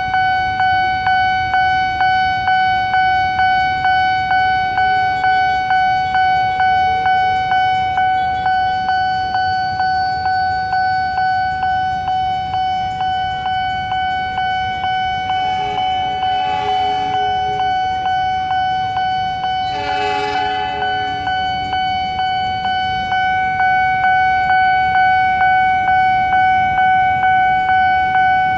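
Nippon Signal electronic railroad crossing bell ringing steadily, one bright tone repeating about two times a second, warning that a train is coming. Past the middle, two horn blasts about four seconds apart sound over it.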